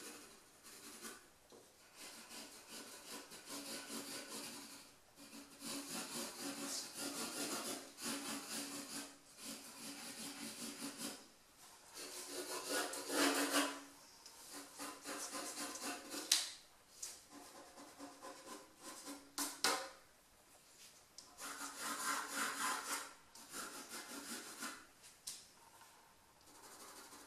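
Graphite pencil scratching on drawing paper in runs of sketching strokes a few seconds long, with short pauses between them. Two sharp ticks sound a little past the middle.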